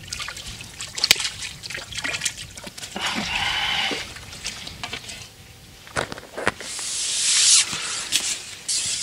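Water splashing and sloshing as a hooked crucian carp thrashes at the surface and is scooped into a landing net. This is followed by a longer, swelling rush of water from about six seconds in, as the net is lifted.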